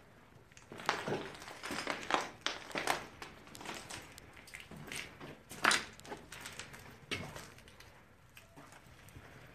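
Footsteps crunching over broken ceiling tiles and plaster debris on a hallway floor, an uneven step every half second to second, with one louder crunch a little past halfway.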